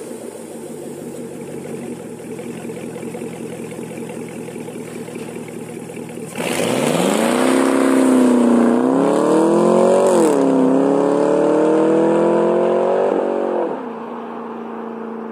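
Car engine through a custom full stainless-steel exhaust, running steadily at first, then accelerating hard from about six seconds in: the pitch rises, dips once at a gear change, climbs again and falls away near the end.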